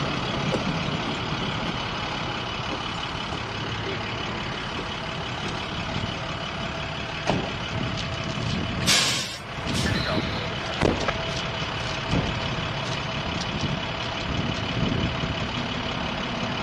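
Hi-rail crane truck's diesel engine running steadily at idle, with a steady whine through it. A brief loud hiss comes about nine seconds in.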